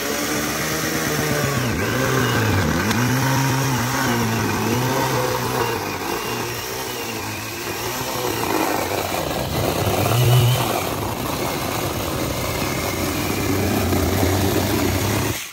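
Small electric chainsaw cutting through a cardboard boat hull of painted cardboard and duct tape, its motor pitch sagging and recovering again and again as the chain bites, then cutting off suddenly at the end.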